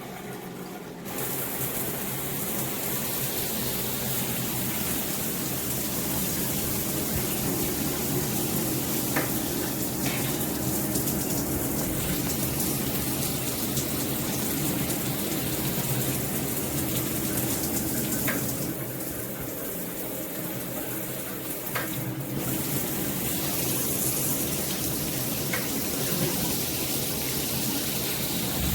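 Shower head spraying water: a steady rush of running water that gets louder about a second in.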